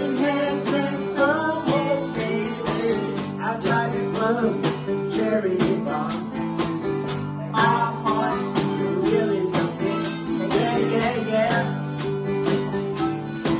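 Live acoustic guitar strummed in a steady rhythm, with a woman singing lead into a microphone.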